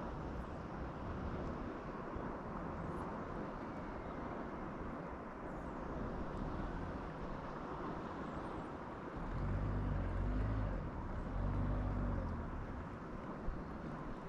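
Steady outdoor noise of wind and water at the fishing spot. About nine seconds in, a low hum swells up twice over a few seconds, and there is a single sharp click near the end.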